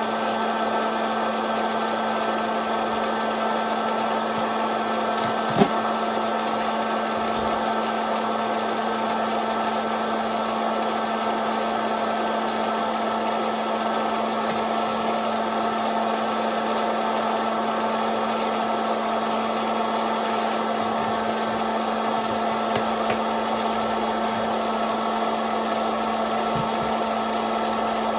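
Popcorn machine running with a steady whirring hum. A single sharp pop comes about five and a half seconds in, and a couple of faint pops come later.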